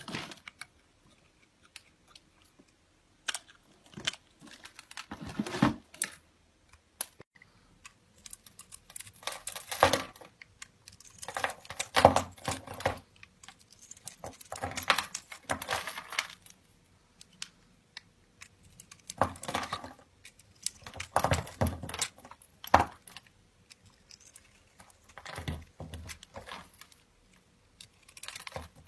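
Irregular clusters of small crisp clicks, scrapes and rustles, like small hard objects being handled, coming in bursts of a second or two with short quiet gaps between them.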